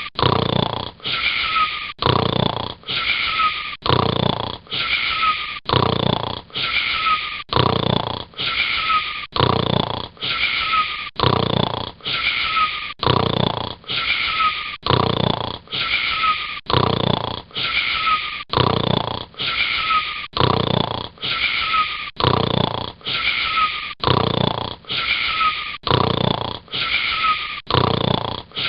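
Steady, regular snoring, about one snore a second, each breath carrying a short whistling wheeze that dips slightly in pitch.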